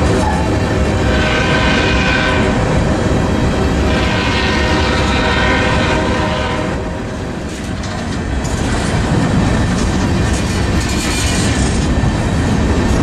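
Empty coal train's open hopper cars rolling past at close range: a steady, loud rumble with the clickety-clack of wheels over rail joints. The chord of a train horn trails off right at the start, and the sound dips briefly about seven seconds in.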